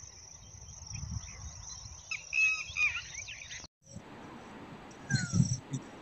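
Insects chirring in a steady high-pitched drone, with several short bird chirps about two to three seconds in. The sound cuts out briefly near four seconds and resumes, and a few low bumps follow near the end.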